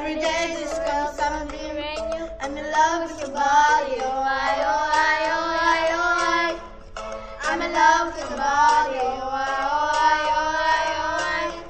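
A song: a voice singing a flowing melody with held, gliding notes over musical backing.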